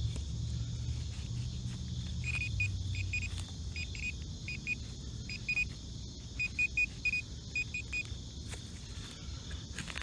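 Short high-pitched beeps from a metal detector, in quick clusters of two to four, starting about two seconds in and stopping about eight seconds in, signalling metal in the freshly dug hole.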